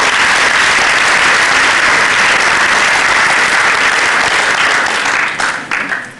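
Audience applauding, a steady dense clapping that thins to a few scattered last claps and dies away near the end.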